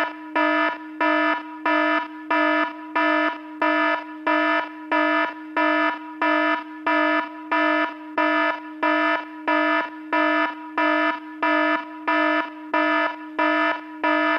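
Electronic alarm sound effect: a loud buzzing warning tone pulsing on and off in an even rhythm, about one and a half to two beeps a second.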